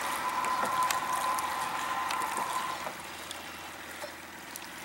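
River water lapping and trickling around a concrete bridge pier, with a steady high tone over it that stops about three seconds in.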